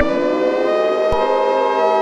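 Civil defense sirens winding up, several stacked tones rising in pitch together; about a second in a click sounds and further steady tones join the rising wail.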